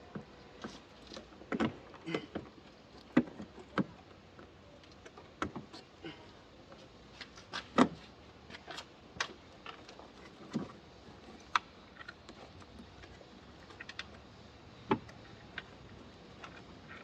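Irregular sharp clicks and knocks of hand tools and parts being handled during work on a car's windshield wiper assembly, a couple of dozen strikes spread unevenly, the loudest about three and eight seconds in.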